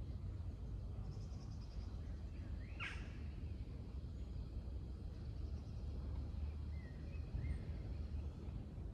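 Outdoor ambience: a steady low rumble with small birds chirping now and then, a short trill about a second in, a bright, sharp call about three seconds in, and a few more chirps near the end.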